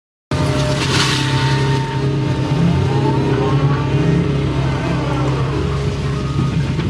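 Excavator diesel engine running steadily under work, heard from inside the cab, with faint whines that rise and fall over it. The sound cuts in just after the start.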